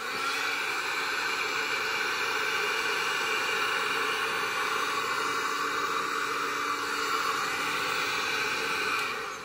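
Handheld electric heat gun running steadily, its fan blowing a hot-air rush over the knifeless tape to seat it fully on the headlight; it fades out near the end.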